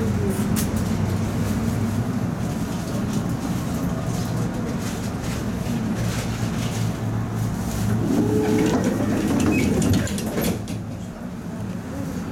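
Tatra T3 tram heard from aboard: a steady low hum from its running gear and electrics, with scattered clicks and rattles. It grows louder about eight seconds in and eases off after about ten.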